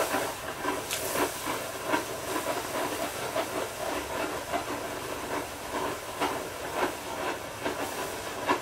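Water boiling and flashing to steam inside a hot steel cannon tube as it is cooled after shrink-fitting. A steady hiss of escaping steam, with bubbling and irregular sharp pops and sputters.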